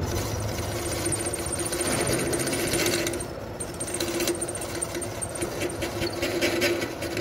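Manual engine lathe running with its chuck spinning: a steady mechanical hum with a held whine from the drive, dipping briefly about three seconds in.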